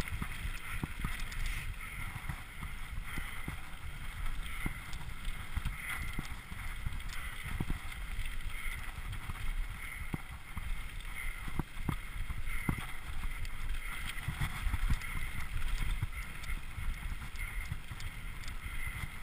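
Mountain bike riding fast down a dirt trail: low wind buffeting on the microphone and tyre rumble, with frequent clicks and knocks as the bike rattles over bumps.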